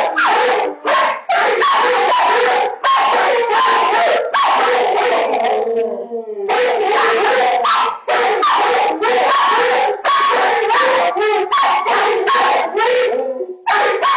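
Two crated dogs barking back and forth in quick, loud, overlapping volleys, picked up by a home security camera's microphone. The barking stops for about a second roughly six seconds in, then starts again.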